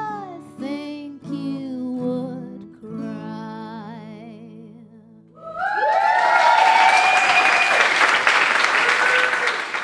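A woman singing the last lines of a song over acoustic guitar, ending on a long wavering note that fades out. About five and a half seconds in, the audience bursts into loud applause with whoops and cheers.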